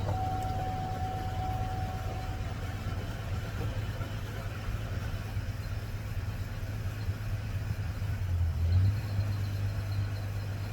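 Chevrolet Trailblazer engine idling steadily, with a thin steady whine over it for the first two seconds or so and a brief swell about eight seconds in.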